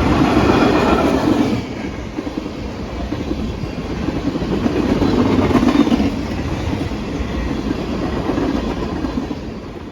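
Freight train rolling past at close range: a steady rumble with wheels clattering on the rails, swelling and easing as the cars go by.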